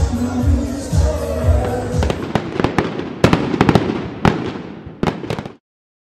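Dance music with a steady beat, overtaken about two seconds in by fireworks: a quick, irregular run of sharp cracks and bangs that cuts off abruptly about half a second before the end.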